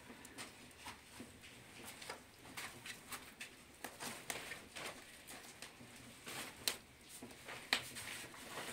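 Footsteps and handling noises in a small bare room: irregular light taps, scuffs and rustles as a woman moves about and picks up cloth, a sack and a sieve, with two sharper clicks near the end.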